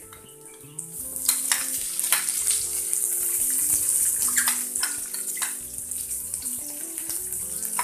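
Chopped red onions hitting hot coconut oil and garlic in a wok: loud sizzling that swells about a second in, with scrapes and clinks of a metal spatula stirring.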